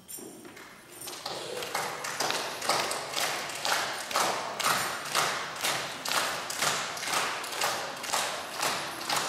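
A tambourine struck in a steady beat of about two strikes a second, keeping time for a dance. It starts faint and grows louder over the first couple of seconds.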